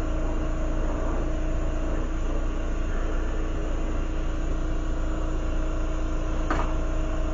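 Glassworking torch flame burning steadily, a constant hiss with a low hum under it, while a glass piece is heated so that it droops. One short click about six and a half seconds in.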